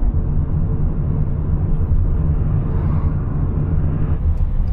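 Delivery van driving, a steady low engine and road rumble.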